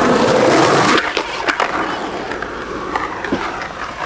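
Skateboard wheels rolling over rough pavement, loudest in the first second, then quieter with a few sharp clacks.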